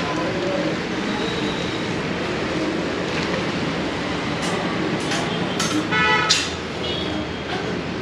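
Steady mechanical hum and noise, with rustling and a few knocks from woven plastic sacks being handled about five to six seconds in, and a brief high-pitched toot near six seconds.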